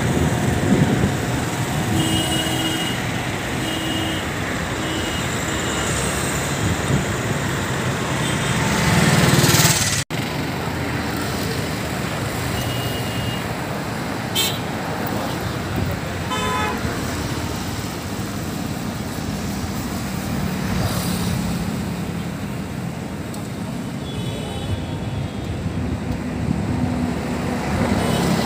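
Steady urban traffic noise with short, repeated vehicle horn toots in the first few seconds and a few more beeps later on. The sound drops out for an instant about ten seconds in.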